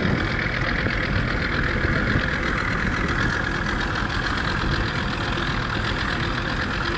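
Boat motor running steadily as the boat cruises along, with the rush of moving air and water.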